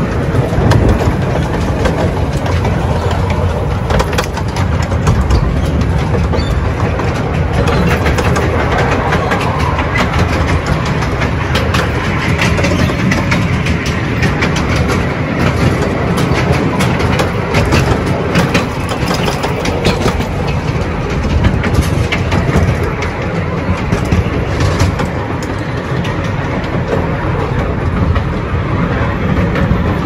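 Currumbin Express tourist train running along its track: a steady rumble of running noise with frequent rattling clicks from the wheels and cars.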